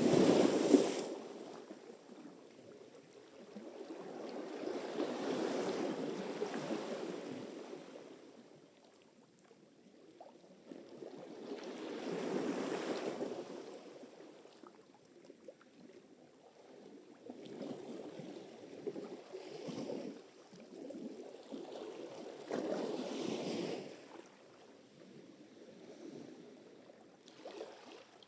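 Sea surf: waves breaking and washing in one after another, each a rush of noise that swells and fades over a few seconds, the sharpest one right at the start.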